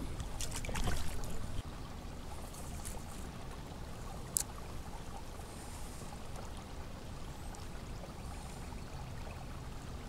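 Water splashing and trickling as a largemouth bass is let go from the hand back into the river beside a kayak, for about the first second and a half. Then a faint steady hiss, with a single sharp click about four seconds in.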